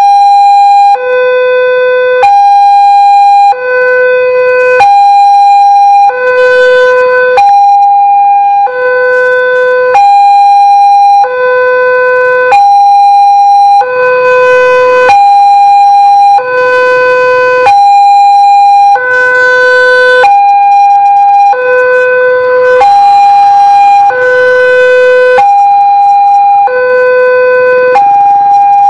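Railway level-crossing warning alarm sounding a loud two-tone electronic chime, steadily alternating a higher and a lower tone, each held for about a second and a quarter. It is the melodious crossing alarm typical of Daop 8 Surabaya, warning that a train is coming while the barrier is down.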